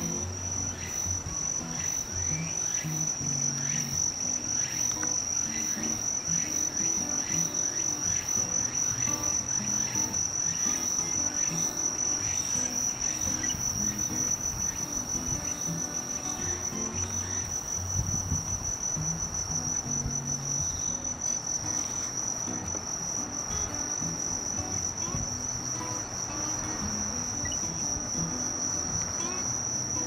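Continuous high-pitched trill of a night-singing insect, steady in pitch and level and unbroken throughout. It is not the phrased song of the Tsukutsukuboushi cicada on screen.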